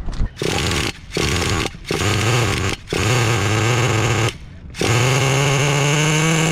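Traxxas T-Maxx 3.3 two-stroke nitro engine being spun over by its starter in four short bursts, briefly catching, then firing up about five seconds in and idling steadily.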